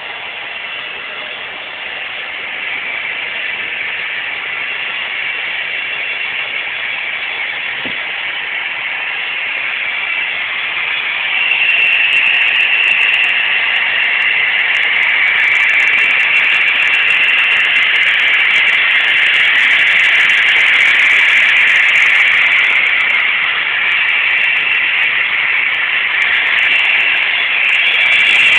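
Model train running on its track: a steady whirring hiss of the small locomotive motor and wheels, growing louder, with a jump in level about twelve seconds in.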